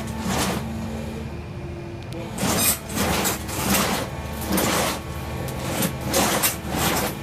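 Concrete-cutting machinery working: a steady engine hum under loud, noisy surges that come and go irregularly, about once a second.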